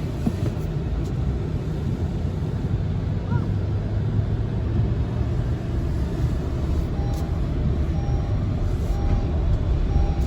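Steady low rumble of wind buffeting the microphone in a snowstorm. About seven seconds in, a faint electronic beep starts repeating about once a second.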